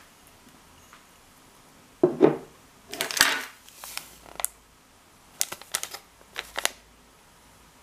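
Foil sachet of dried yeast crinkling as it is picked up and handled, in several short bursts: the loudest rustles about two and three seconds in, then sharper crackles near the end.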